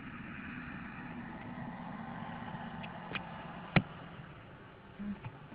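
A steady low hum with hiss, like a vehicle's engine running, broken by three sharp clicks between about three and four seconds in, the last one the loudest.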